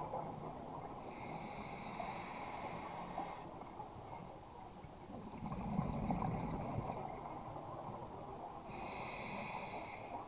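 Scuba regulator breathing heard underwater: a hissing inhale about a second in, a rumbling burst of exhaled bubbles around the middle, and another hissing inhale near the end.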